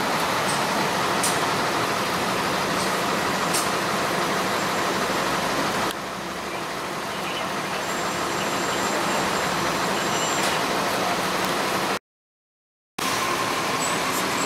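Street traffic noise dominated by a steady vehicle engine running close by. The level steps down about six seconds in, and the sound cuts out completely for about a second near the end.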